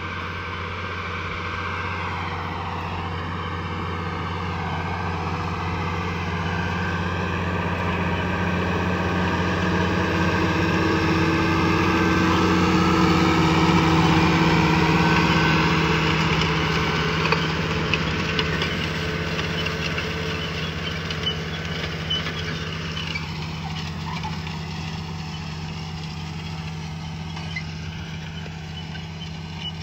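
International Harvester 1486 tractor's six-cylinder turbo-diesel engine running steadily under load while pulling a six-row planter, growing louder to a peak about halfway through as it passes, then fading as it moves away.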